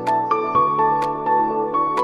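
Background music: a calm instrumental of held notes that change every half second or so, with light struck accents.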